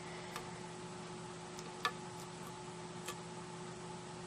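A few faint taps and clicks from a metal cutting die and cardstock being positioned by hand, the clearest nearly two seconds in, over a steady low hum.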